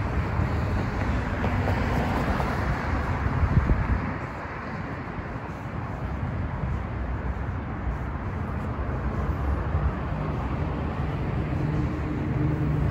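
Road traffic going past: a steady noise of cars on the road, louder for the first few seconds. A low engine hum comes in near the end.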